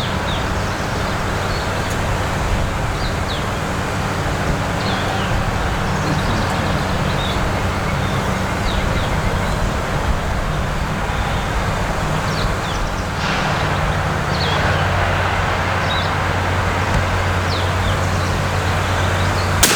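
Steady wind noise on the microphone with a low hum under it and scattered short bird chirps, then a single loud shotgun blast right at the end.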